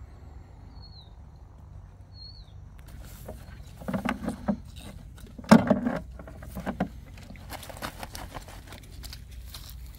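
Irregular dull thumps with rustling and light clicks, loudest about four and five and a half seconds in, over a low steady rumble. Two faint short chirps come about one and two seconds in.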